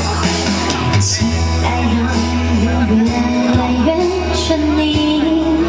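Mandarin pop song accompaniment through a stage sound system, with a woman starting to sing live into a handheld microphone about a second in.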